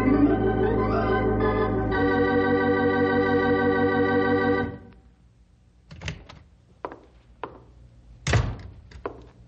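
Organ music holding a sustained chord, which shifts about two seconds in and breaks off after about four and a half seconds. A handful of sharp, unevenly spaced knocks follow, the loudest near the end.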